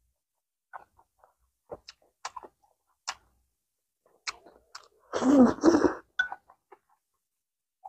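Close-miked mouth sounds of a person eating soft steamed rice rolls: scattered small chewing clicks and lip smacks, then a louder, longer slurping mouthful about five seconds in.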